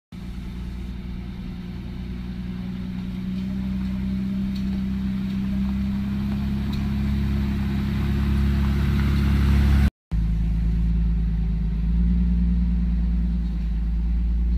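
Jeep engine running at low speed on a dirt road, a steady low hum that grows louder over about ten seconds as it approaches. A brief dropout comes about ten seconds in, and then the engine carries on steadily.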